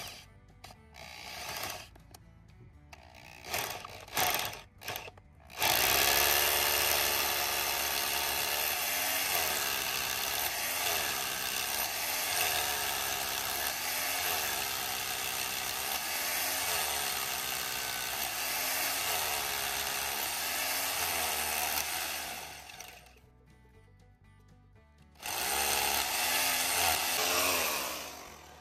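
Corded hammer drill with a 5/8-inch masonry bit boring into a concrete pier. A few short trigger bursts start it, then it runs long and hard, its pitch rising and falling as the bit is worked up and down in the hole to clear the dust. After a brief stop there is one more run near the end.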